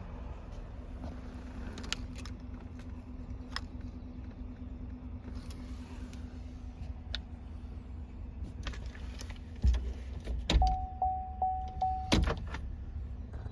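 Scattered clicks and a steady low hum from a 2020 GMC Sierra pickup. Near the end come heavy thumps and a steady warning chime that beeps about four times.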